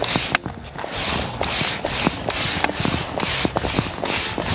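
Hand pump inflating an inflatable float tube: a rhythmic rushing hiss of air with each stroke, about two strokes a second, over light knocks of the plunger.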